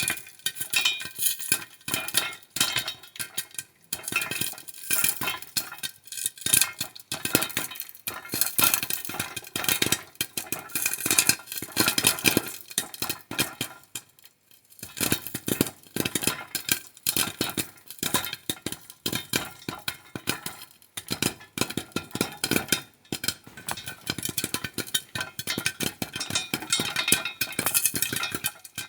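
Popcorn kernels popping in a pan: dense, rapid, irregular pops that thin out briefly a few times, most clearly about halfway through.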